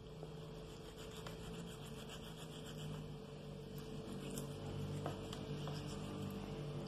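Faint scraping, rubbing and small clicks of a knife working through raw chicken meat and joint while the leg bone is cut out, over a steady low hum.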